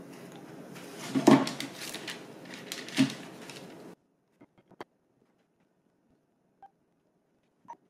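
Two loud knocks, about one and three seconds in, from hands working dough and setting rolls on a baking tray at a kitchen counter, over a steady hiss. The hiss cuts off suddenly about four seconds in, leaving a few faint taps.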